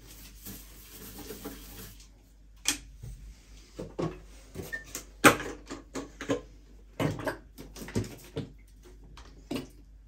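A stiff brush scrubbing a ceramic washbasin in a soft hiss, then a run of sharp clicks and knocks as hard plastic items are handled on the basin: the brush set down on the rim and a plastic cleaner bottle picked up.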